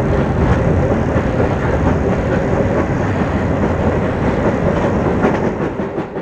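Rhaetian Railway G4/5 steam locomotive running past close by on narrow-gauge track, its wheels clattering over the rails. The sound fades near the end as it moves away.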